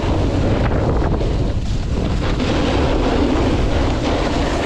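Wind rushing over the microphone of a camera moving down a groomed ski run at speed, over the steady hiss and scrape of a snowboard sliding across packed snow.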